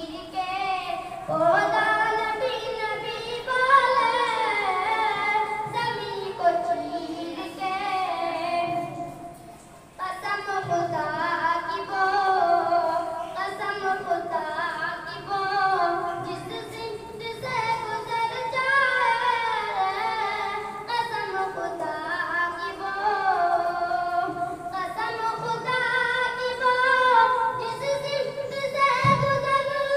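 A solo voice singing a naat, an Islamic devotional song, in long melodic phrases, with a short break for breath about ten seconds in.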